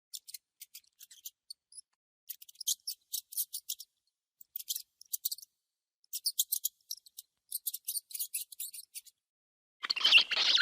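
Parrot making rapid series of short, high-pitched clicking chirps in several clusters, then a loud harsh squawk near the end.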